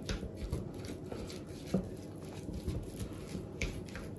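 Metal fork mixing a soft tuna and egg-yolk filling in a small glass bowl: irregular light clicks and short scrapes of the fork against the glass, with soft squishing of the mixture.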